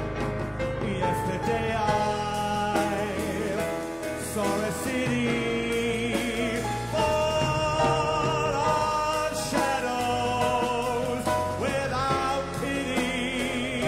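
Live music without lyrics: long held melody notes, some wavering, over a steady accompaniment.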